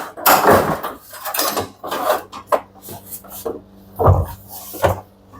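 Knocks, scrapes and clunks of a front-loading washing machine's tub-and-drum assembly being worked loose and lifted out of the cabinet, with two heavier thumps about four seconds in.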